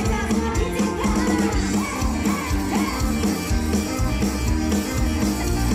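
Loud band music over a sound system, with a steady drum beat and a singing voice.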